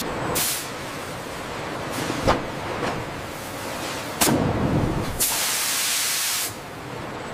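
Factory machine sounds: bursts of hissing like compressed air or spray, the longest and loudest starting about five seconds in and lasting over a second, with a couple of sharp clanks, one of them joined by a low thud about four seconds in.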